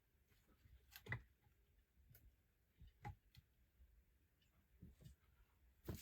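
Near silence, with a few faint short clicks about one, three and six seconds in.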